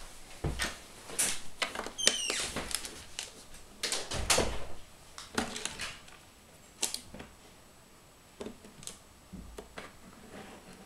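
Plastic Lego bricks clicking and knocking as pieces are handled and pressed onto a model: a busy run of clacks in the first half, then sparser single clicks. A brief high squeak about two seconds in.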